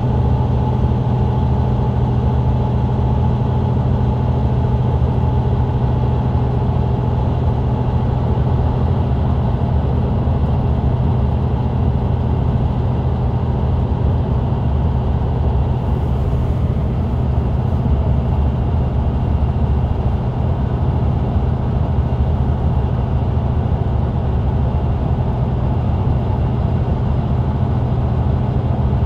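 Mercedes-Benz Citaro C2 LE bus's diesel engine and ZF Ecolife automatic gearbox running steadily at cruise, heard from the rear seats inside the cabin, with an even engine drone and no change in pitch.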